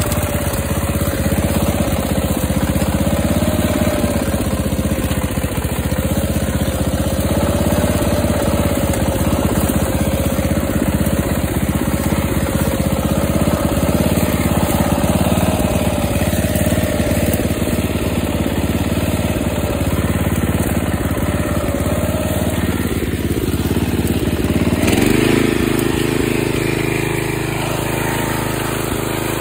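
Ariens riding mower engine running steadily with a wavering whine over it. About 25 seconds in, the engine revs up to a higher, steadier pitch as the mower drives off through brush.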